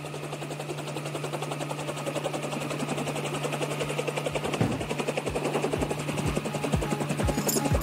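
Helicopter rotor sound effect: a fast, even chopping over a steady low hum, growing louder. Deep, falling-pitch drum beats come in about halfway, around two a second.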